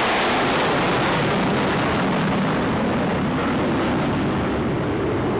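Jet roar of the Frecce Tricolore's Aermacchi MB-339 jets passing overhead in formation: a loud, steady rushing noise that eases slightly toward the end.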